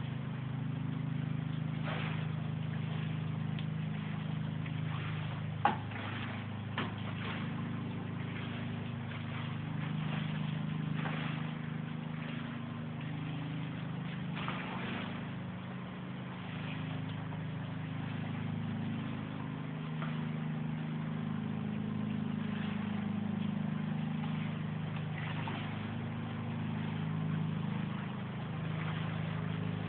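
Steady low rumble of torrential rain and overflowing runoff water, with a few scattered knocks, the sharpest about six seconds in.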